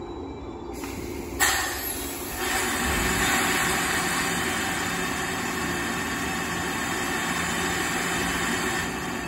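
A 113 series electric train standing at the platform. It gives a sudden loud hiss of compressed air from its air system about a second and a half in, which runs on steadily for several seconds over a steady low hum.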